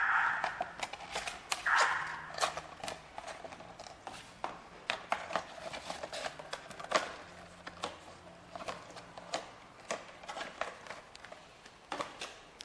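White paperboard cartons being handled, folded and set down by hand: irregular taps and clicks of cardboard against cardboard and the steel conveyor frame, with two brief rustles in the first two seconds.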